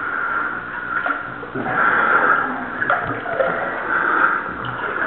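Water sloshing and splashing in irregular surges as a caver swims through a flooded cave passage, with a few faint knocks.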